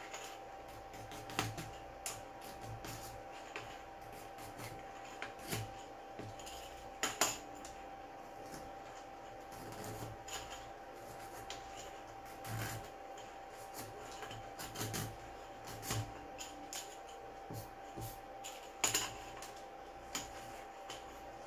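Irregular small clicks and scrapes of a hand tool picking plastic bits out of a freshly 3D-printed bearing ring, the loudest clicks about 7 seconds in and near the end. A faint steady tone sounds underneath.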